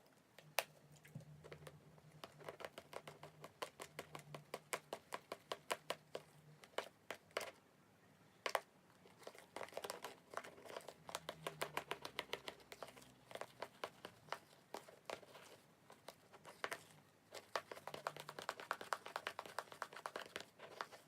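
Slime with crushed Banana Kick corn-puff snack in it being squeezed and kneaded by hand, the snack bits crunching and crackling in a dense run of small sharp clicks with a few louder snaps.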